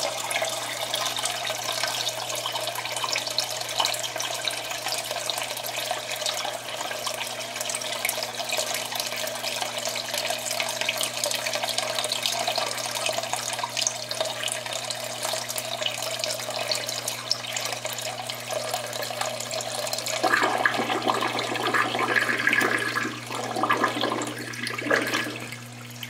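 Water draining through a bell siphon out of an aquaponics grow bed into the fish tank below, a steady rush over the low steady hum of the water pump. From about 20 seconds in the flow grows louder and uneven, as the bed empties and the siphon begins to break.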